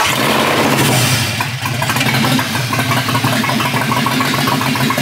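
BMW E36 M3 inline-six idling steadily, with a light regular ticking over it, run briefly to mix fresh oil with the water-contaminated, milky oil in its sump as part of a flush.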